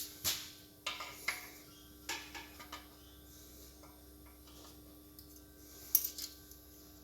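Small steel parts and hand tools clinking against a tractor gearbox mainshaft as a snap ring is worked on. There is a run of light metal clicks in the first three seconds, then a sharp, louder metallic click about six seconds in, followed by a couple of smaller ones.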